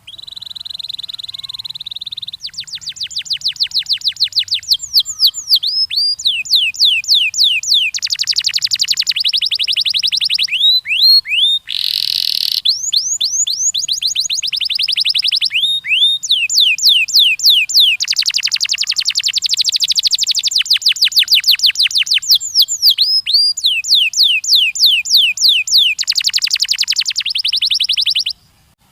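Domestic canary singing a long song made of fast trilled phrases, each a few seconds of one note repeated rapidly before it switches to another, with a short harsh buzzy note about halfway through. The song breaks off shortly before the end.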